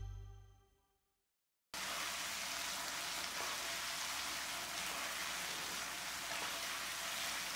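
Sauce-glazed chicken pieces sizzling in a hot wok: a steady sizzle that cuts in suddenly about two seconds in, after the last notes of a short jingle fade out.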